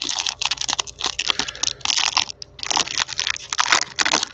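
Wrapper of a Panini Prizm basketball card pack being torn open and crinkled in the hands: dense crackling with a short pause about halfway through.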